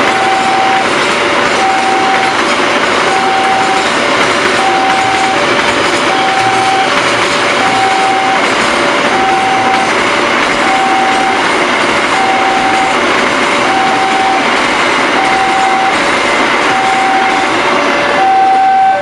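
Level-crossing warning siren sounding a steady alternating high-low two-tone signal, about one cycle every second and a half. A passing train runs loud over it with wheel noise, then dies away near the end, leaving the siren still sounding.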